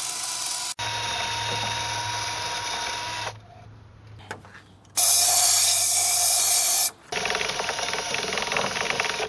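Drill spinning a brush of nylon zip ties inside an engine's intake port, scrubbing carbon buildup off an intake valve. It runs in several separate bursts that start and stop abruptly, with a quieter lull past the middle and the loudest, harshest run about two-thirds of the way through.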